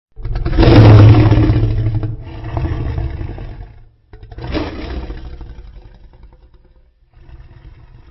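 Custom Godzillasaurus monster roar, a designed sound effect layered from dinosaur and big-animal roars. A loud, deep roar starts suddenly and fades over about four seconds, then a second, weaker roar follows and tails off, with a faint low growl near the end.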